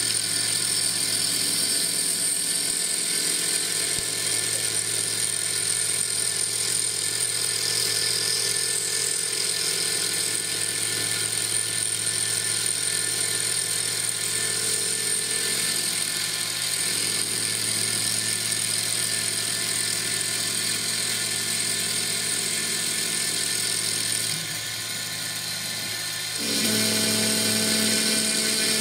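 CNC mill spindle running with a steady high whine as its cutter machines a Stone Hopea burl wood ring blank held in the rotary fourth axis. The sound drops about 24 seconds in, then returns louder with lower tones near the end as the next clearance pass begins cutting.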